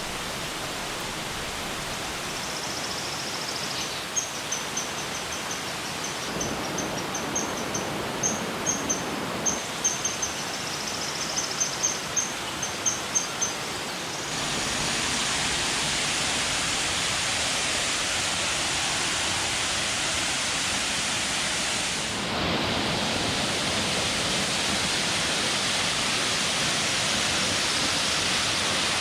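Cascading waterfalls rushing steadily. Between about 4 and 14 seconds in, a high chirping repeats many times over the water; about 14 seconds in, the rushing steps up louder and brighter.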